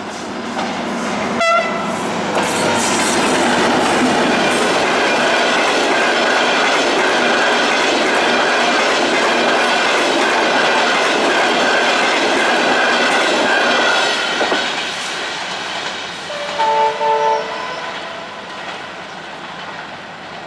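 Passenger train hauled by a CKD diesel-electric locomotive passes at speed: loud for about twelve seconds as the locomotive and then the coaches' wheels clatter over the rails, before it fades away. A few short horn toots sound about three-quarters of the way through.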